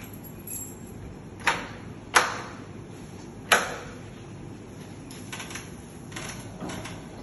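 Metal fittings of a Dorma folding sliding glass wall: three sharp clicks within a couple of seconds, then a run of lighter clicking and rattling as the glass panels are released and folded open along their track.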